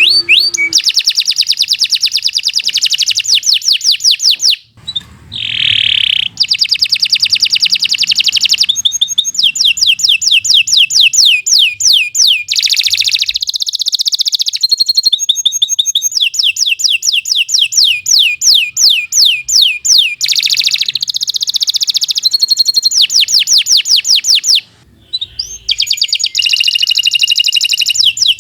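Domestic canary singing a long, loud song of rapid trills, each a fast run of repeated sweeping notes. The song breaks briefly about five seconds in and again near the end.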